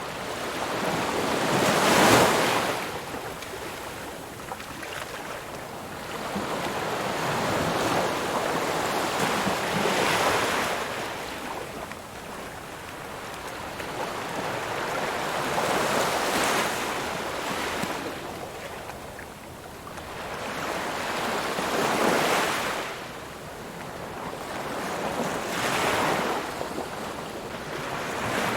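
Ocean waves breaking on a shore: a steady wash of surf that swells into a crash and then recedes, about five times, several seconds apart.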